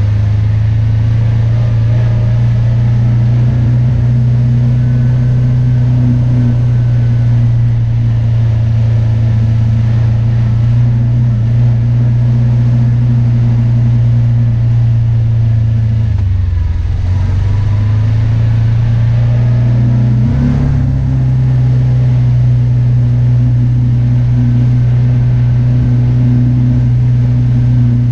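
Kawasaki Teryx side-by-side's V-twin engine running steadily at trail speed, heard from inside the cab. A little past halfway the engine note drops, then climbs back up about four seconds later.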